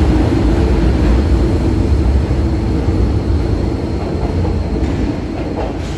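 MTR M-train electric multiple unit running through the station without stopping: a steady rumble that slowly fades as the rear car goes by.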